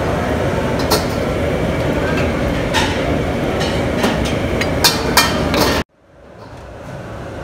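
Samosas deep-frying in hot oil in a steel wok: a steady sizzle, with sharp clinks of a metal slotted spoon against the pan. The sound cuts off suddenly near the end and fades back in quieter.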